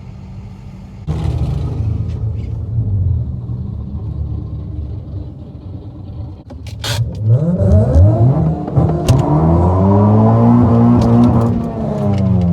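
Honda Civic Si engine at full throttle at a drag strip start: the engine noise jumps up about a second in, then from about seven seconds the revs climb again and again in quick steps before holding at a high pitch and easing off near the end.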